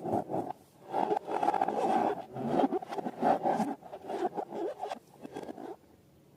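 Scraping and rubbing from hands working balloons and slime, in uneven stretches that stop about six seconds in.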